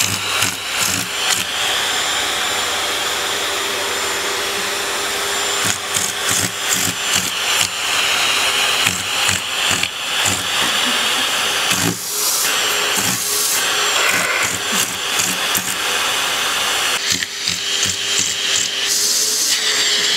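Vacuum cleaner running with its hose nozzle pressed against a cat's face and paws: a steady suction hiss and whine, broken by many irregular pops and knocks as the nozzle rubs against the cat.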